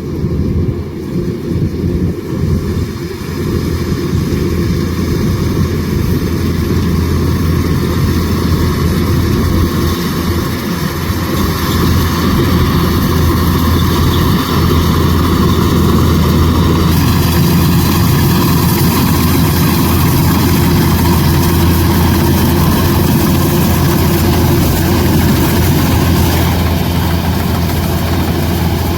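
Kubota DC105X rice combine harvester running, its diesel engine giving a steady low drone. The sound grows louder over the first few seconds and gains more high hiss from about 17 seconds in, easing slightly near the end.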